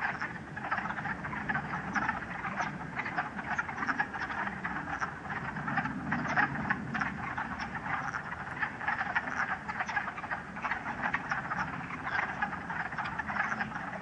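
Wood frog chorus: many wood frogs calling at once in a dense, continuous chatter of short, duck-like clucks. This is their spring breeding chorus.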